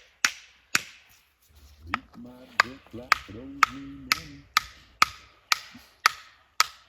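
Steady hammering blows, about two a second, on a fire-hose fitting seized with sand, struck to break it loose. Partway through, a drawn-out, straining vocal sound runs under the blows for a few seconds.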